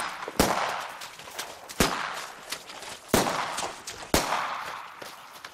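Pistol fired four times, a little over a second apart. Each shot is a sharp crack that trails off over about a second.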